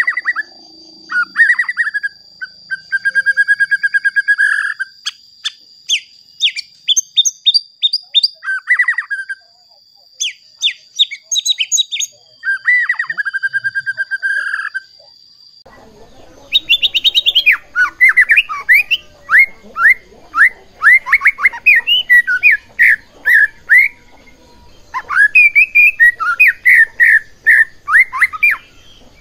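White-rumped shama (murai batu) singing loudly: varied phrases of whistled notes, buzzy trills and rapid chattering. After about sixteen seconds the song turns to a long run of quick repeated notes.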